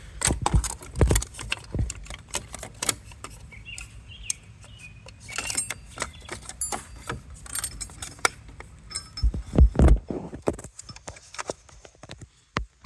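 Irregular clinking, tapping and clicking of small metal hardware (Allen bolts and hand tools) being handled while a dock's side cover is fitted, with a few short metallic rings near the middle.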